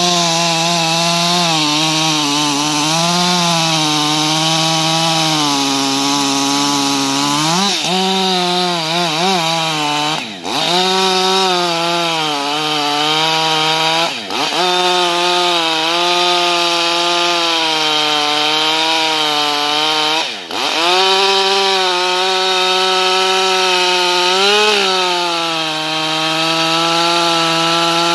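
Husqvarna 560XP two-stroke chainsaw running at high revs while cutting through the trunk of an uprooted deciduous tree. Its pitch wavers under load, and three times the revs drop sharply for a moment and pick up again as the throttle is eased and reapplied.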